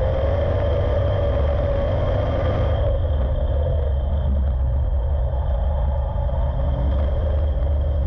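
Street stock's V8 racing engine running hard at race pace, heard from inside the car as a loud, steady rumble. It eases off about three seconds in, then picks back up near the end.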